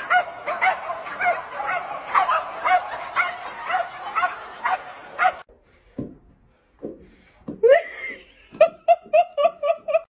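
Dogs barking in quick, even runs of about three barks a second, mixed with laughter. After a pause of about two seconds, a faster run of short barks comes near the end.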